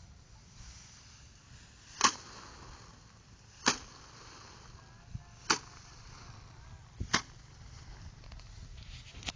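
Rice sheaves beaten by hand against a threshing frame (gebotan): four sharp whacks roughly one and a half to two seconds apart, the last one doubled.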